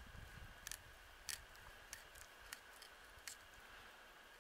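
Faint, sharp clicks of a blade cutting into a trout as it is cleaned, about six of them at uneven intervals.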